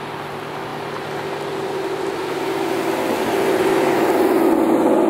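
2015 Ford Mustang GT's 5.0-litre V8 running through a Corsa Xtreme cat-back exhaust, cruising past at about 20 mph. The low, steady exhaust note holds its pitch and grows louder as the car approaches, loudest near the end as it passes.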